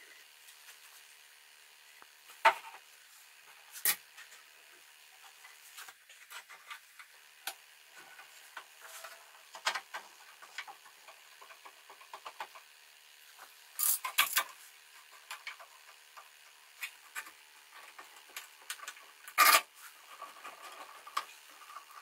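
Bar clamps and wooden cauls being fitted to a glued-up wooden slab: scattered clicks, taps and rattles of metal clamp parts and wood, with a few sharper knocks.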